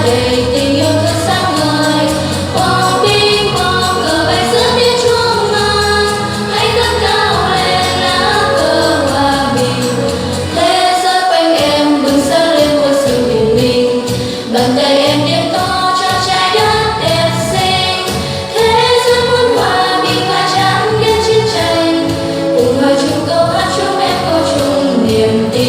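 A group of children and young people singing a Vietnamese song together in chorus over instrumental accompaniment.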